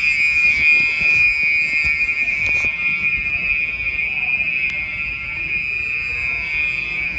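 Electronic fire alarm horn, a Gentex SHG first generation, sounding continuously as one steady high-pitched tone without pulses, signalling a building evacuation. A hiss of noise sits over it and stops abruptly about two and a half seconds in.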